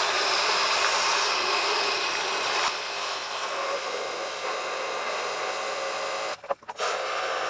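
Water sprayed from a hose nozzle up into a rusted Jeep frame rail, a steady hiss of spray with water and loosened rust and silt splattering down out of the frame. The spray cuts out briefly twice near the end.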